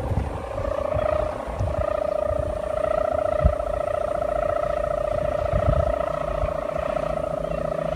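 Sendaren, the bow-and-ribbon hummer on a flying kite, humming a steady drone that wavers slightly and steps up a little in pitch about a second and a half in. Wind rumbles and thumps on the microphone underneath.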